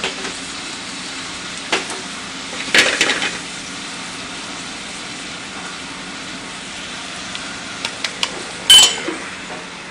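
Onions and dry chili spices sizzling gently in a saucepan over a gas flame, with a spoon stirring and knocking against the pan a few times. The sharpest knock comes about a second before the end.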